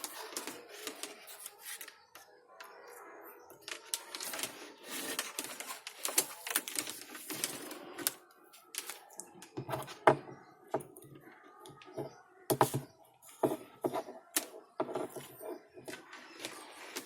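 Irregular clicks, taps and knocks from hands working with small hard parts and tools, a few sharp louder knocks in the middle stretch.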